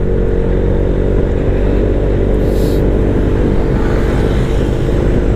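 Motorcycle engine running at a steady cruising speed, with road and wind noise, heard from the handlebars. A brief hiss sounds about halfway through.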